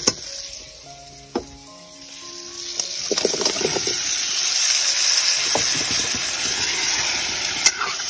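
Hot oil sizzling in a steel kadhai. About three seconds in, a few clicks come as pork and vegetable chunks go into the pan, and the sizzle grows loud and steady while a spatula stirs and scrapes the pan.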